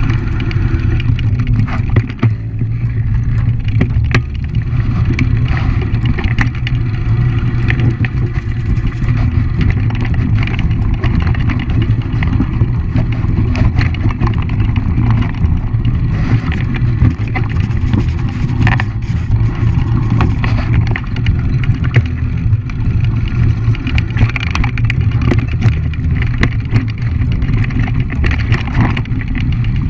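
Mountain bike rolling fast over a loose, rocky trail: a steady low rumble of tyre and wind noise on a bike-mounted camera, with frequent rattling clicks and knocks as the bike jolts over stones.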